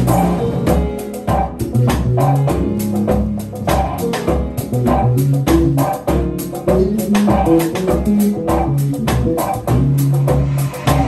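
Live jazz trio playing: an electric bass line of held low notes under a drum kit keeping a busy, steady beat, with keyboard chords.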